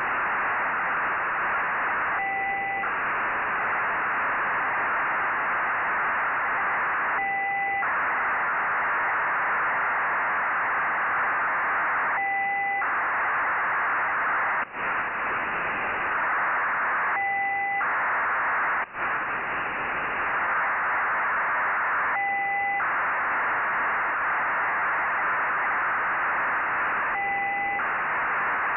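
Nayif-1 (EO-88) satellite telemetry downlink demodulated by a software-defined radio receiver: a steady hiss, broken about every five seconds by a short two-tone beep. Twice the sound drops out briefly.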